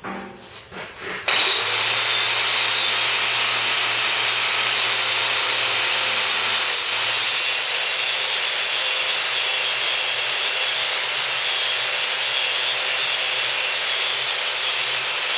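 Electric angle grinder with an abrasive disc grinding a steel plate: a steady, even grinding noise that starts abruptly about a second in and holds a constant level.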